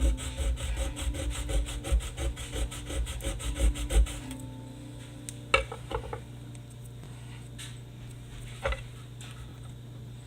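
A blade sawing and scraping quickly back and forth at the hard casing of a firework aerial shell for about four seconds, a rasping stroke with a knock each pass, without cutting through. It then stops, leaving a few separate clicks.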